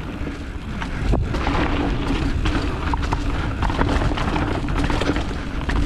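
Mountain bike rolling fast down a rocky dirt trail. Tyres rumble and wind buffets the action camera's microphone steadily, with scattered knocks and rattles as the bike hits rocks, one sharper about a second in.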